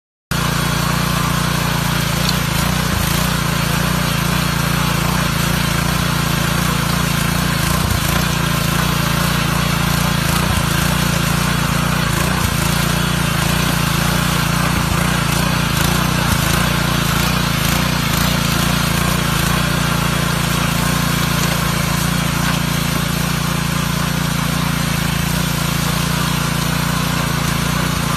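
Small 6.5 HP, 132 cc single-cylinder petrol engine of a walk-behind power tiller, running steadily at an even speed.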